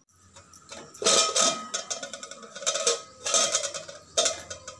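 Aluminium pot lid being slid and lifted on the rim of an aluminium pot: metal scraping and clinking with a light ring, in several strokes starting about a second in.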